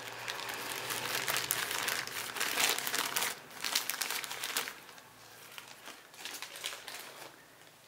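Clear plastic wrapping crinkling and rustling in the hands as a new piston is unwrapped. The crinkling is densest for the first five seconds or so, then thins to a few lighter rustles.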